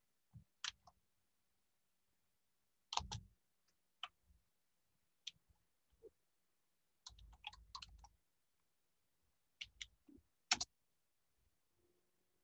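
Faint typing on a computer keyboard: a few short runs of keystrokes with single clicks between.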